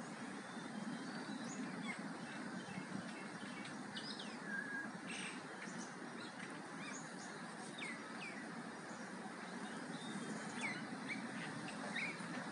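Outdoor ambience picked up by a Redmi 4X phone microphone: a steady low background noise with scattered short bird chirps throughout.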